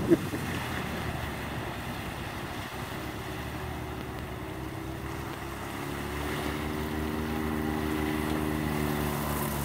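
Side-by-side UTV engine running steadily as the machine drives through a shallow river, its tyres splashing through the water. The engine note grows louder and clearer from about halfway as it comes up the bank, with one sharp knock right at the start.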